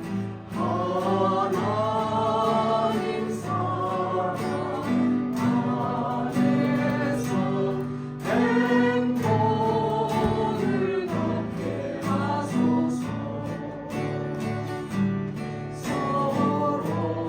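A small vocal ensemble singing a hymn in harmony, accompanied by guitars.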